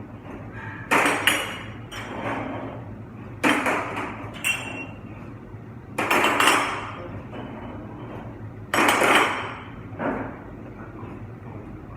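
Dishes clattering and clanking as they are handled: four loud crashes spaced two to three seconds apart, each ringing briefly, over a steady low hum.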